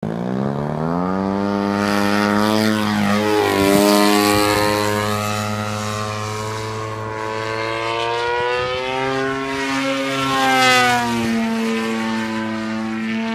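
Engine and propeller of a 108-inch 3DHS Extra 330LT radio-controlled aerobatic plane running hard as it takes off and flies. The drone rises in pitch over the first couple of seconds, then sweeps up and down as the plane manoeuvres and passes.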